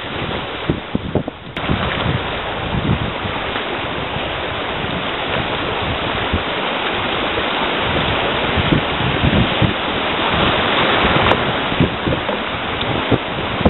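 Rushing whitewater rapids, with waves and paddle strokes splashing against the side of an open canoe and wind on the microphone. The rush gets suddenly louder about a second and a half in.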